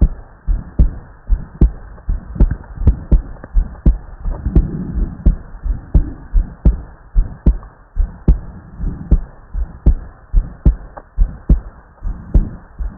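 Heartbeat heard through a stethoscope: a steady rhythm of paired lub-dub thuds, a little over one beat a second, over a low rumble of body noise.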